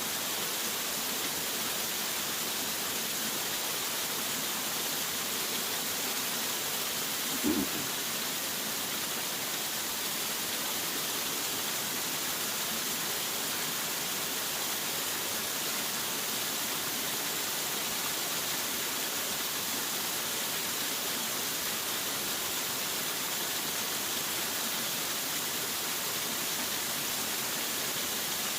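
Waterfall pouring: a steady, even rush of falling water, with one brief low thump about a quarter of the way in.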